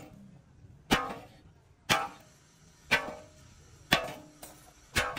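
Hammer striking steel five times, evenly about a second apart, each blow ringing briefly.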